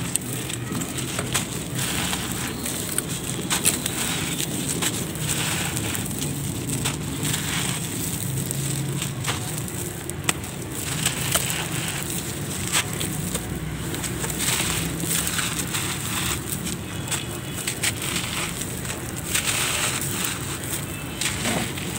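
Dry gritty red sand-like lumps crushed and crumbled between bare hands, the grit crackling and trickling through the fingers in a continuous run of small crunches.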